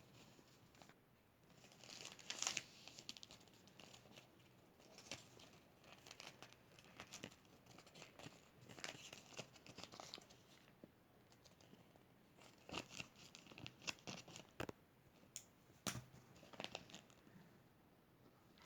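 Faint paper tearing and crinkling in short, scattered bouts, the loudest about two and a half seconds in.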